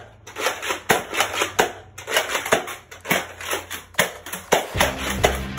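Foam-dart Nerf blasters being primed and fired, a rapid, irregular run of sharp clacks and knocks, a few every second. Near the end, music with a steady bass comes in.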